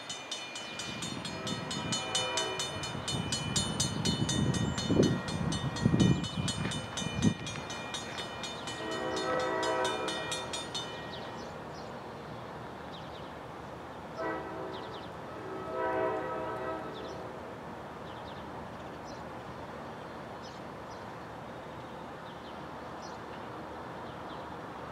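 Distant train horn sounding the grade-crossing signal as a train approaches: long, long, short, long, the first blast faint. Gusts of wind buffet the microphone during the first several seconds.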